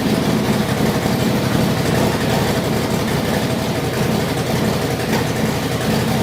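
Harley-Davidson V-twin engine on a freshly built custom motorcycle idling steadily, moments after starting on the first try.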